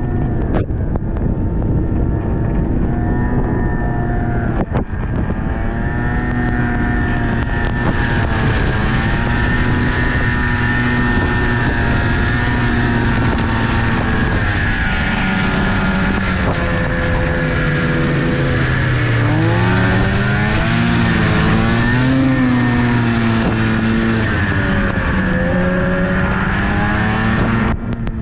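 Snowmobile engine running under way, its pitch steady at first, then dropping and climbing again about two-thirds through as the throttle eases off and opens.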